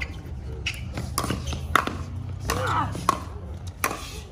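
Pickleball rally: a series of sharp pops as solid paddles strike the hollow plastic ball back and forth, about half a second to a second apart, with the ball's bounces on the hard court. Spectators' voices sound faintly underneath.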